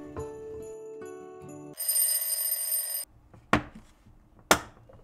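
Background music, then a loud ringing bell sound effect lasting about a second, then two sharp plastic clicks about a second apart as the latch flaps of a clip-lock food container lid are snapped open.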